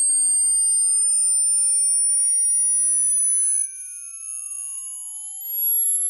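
Hearing-test sine tone, very high-pitched and slowly rising in pitch, dropping in loudness about two-thirds of the way through and swelling again near the end. The point at which a listener stops hearing it marks their hearing age.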